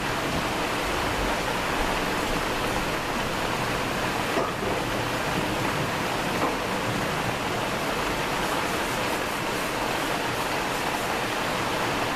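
Steady rain falling: an even, unbroken hiss of rainfall.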